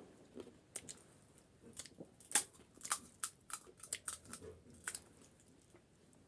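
Close-miked chewing of a large mouthful of panipuri, the crisp puri shell cracking in many sharp, irregular crunches.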